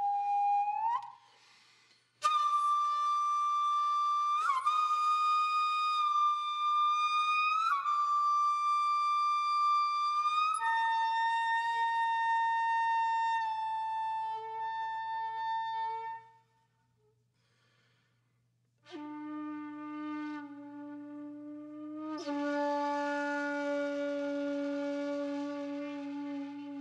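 Background music: a solo flute-like wind instrument playing slow, long held notes that slide up into each pitch, with two short breaks. After the second break it plays much lower notes.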